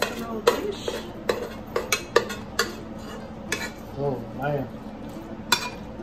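A metal spoon scraping and knocking against a nonstick pan as macaroni and ground beef are spooned out into a foil-lined casserole dish. The clinks and scrapes come at irregular intervals.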